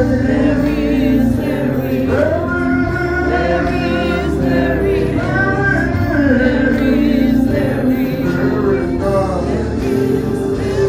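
Church choir singing a gospel hymn with men's and women's voices, sustained notes over instrumental accompaniment.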